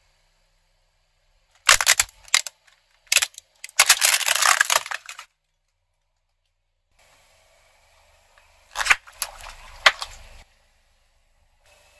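Hard plastic toy dinosaur cracking under a car tyre: a few sharp snaps about two seconds in, then a burst of crunching and crackling as it breaks apart. After a pause, water balloons burst under the tyre with two sharp pops over a faint wash of water.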